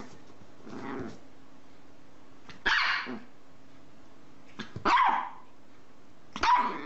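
Chihuahua barking three times, about two seconds apart, with a softer sound from it about a second in.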